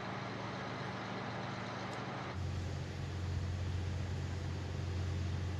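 Steady low engine hum with a background hiss. A little over two seconds in the sound changes abruptly: the hiss drops and the hum gets stronger.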